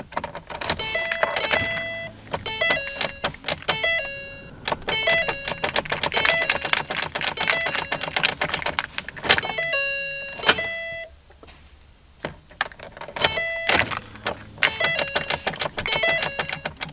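Car keys jangling and clicking as the key is worked in a failing 2008 Ford Focus ignition switch, with short electronic tones sounding again and again.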